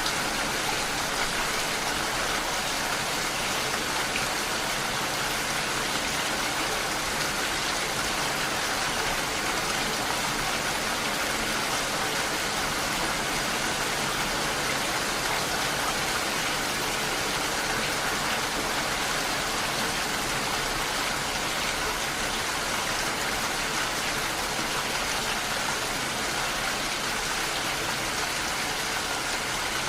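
Steady rain falling on window glass, an even hiss that holds at one level.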